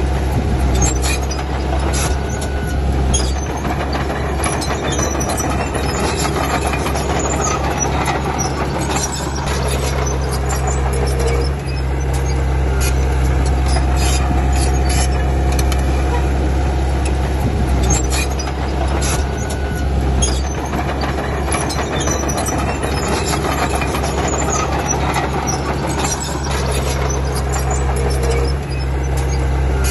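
Komatsu D31P crawler bulldozer working: its diesel engine runs steadily under load while the steel tracks clank, with a few short squeals from the tracks.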